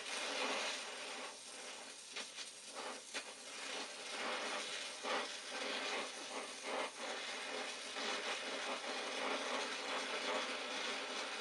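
Oxy-acetylene torch flame hissing steadily while a copper refrigerant line joint is brazed, with irregular short crackles through the first seven seconds or so.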